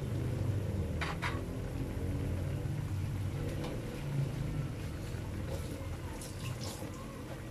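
Chicken livers and gizzards simmering in adobo sauce in an aluminium wok: a steady low rumble with soft bubbling, and two faint ticks about a second in.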